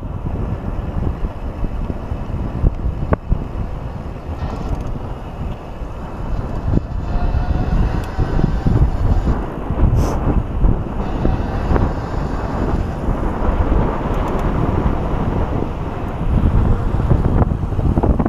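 Wind buffeting the microphone of a camera on an electric mountain bike ridden at speed, a steady gusty rumble. About seven seconds in, a faint, slightly rising whine from the bike's Cromotor hub motor comes through.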